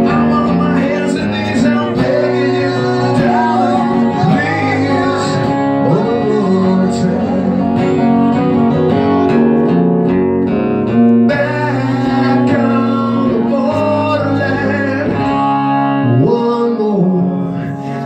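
Live acoustic rock song: two acoustic guitars strummed and picked together, with a man's voice singing over them at times.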